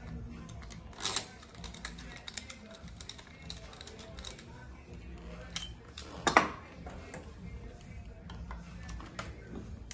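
Small metallic clicks and taps of a hand tool working at the glow plug of a Ford 1.8 turbodiesel's cylinder head as the plug is unscrewed and removed, with two sharper knocks about a second in and just after six seconds.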